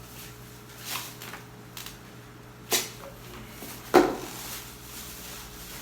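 Two sharp knocks, a little over a second apart, about three and four seconds in. The second is louder and rings briefly. A few softer knocks come earlier, over a faint steady low hum.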